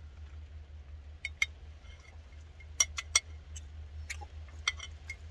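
A metal spoon clinking and scraping against a glass food container while scooping rice: about eight sharp, irregular clinks over a steady low rumble.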